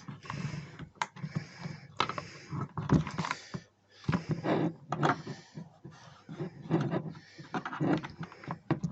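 Irregular handling noise: clicks, knocks and rubbing of plastic as a keyboard and its USB cable are moved and plugged in.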